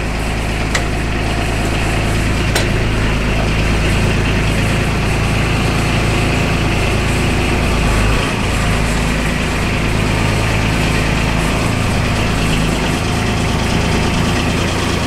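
Kubota RTV900's three-cylinder diesel engine running steadily as the vehicle is backed out, with no unusual noise. There is a sharp click just under a second in and another about two and a half seconds in, and the engine note dips briefly about eight seconds in.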